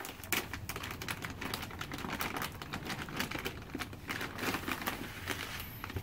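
Thin plastic bag crinkling and rustling as it is handled, with a dense run of small irregular clicks as bird seed is tipped out of it into a small ceramic bowl.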